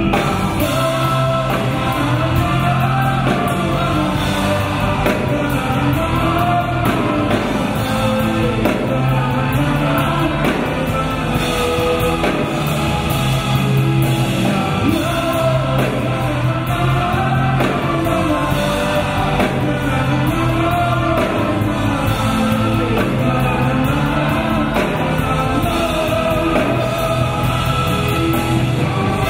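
Live performance of a rock band with electric guitars and bass together with a folk choir and folk-instrument orchestra, a melody sung by many voices over a steady bass.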